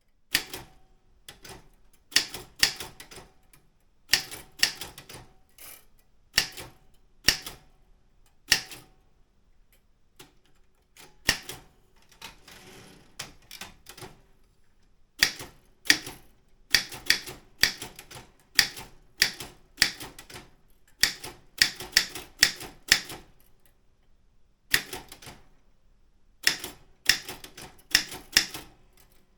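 Daro Optima M16 manual typewriter being typed on: sharp key strikes in quick irregular bursts with short pauses between them, starting about half a second in. A softer stretch of rasping noise comes near the middle.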